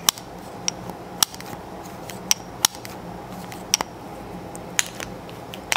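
Slide of an Atlas Gunworks Athena 2011 pistol being worked back and forth by hand, giving a series of about nine sharp metallic clicks at uneven intervals, over a steady low hum.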